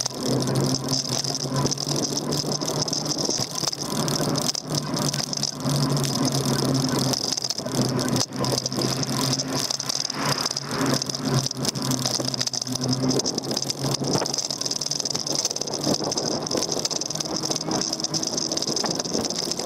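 Daymak Max e-bike on the move, heard from its handlebar: a constant rattle over the road, a low electric-motor hum that comes and goes, and a steady high whine.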